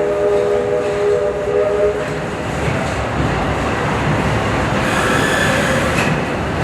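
A steam locomotive's chime whistle sounds a steady multi-note chord that stops about two seconds in. Under it the narrow-gauge train keeps running, with a steady rumble and the clatter of wheels on rail.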